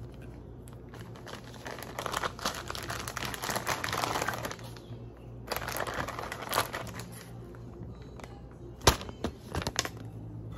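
Clear plastic zip-top bag crinkling as it is handled, in two stretches. A few sharp clicks follow near the end, the first and loudest about nine seconds in.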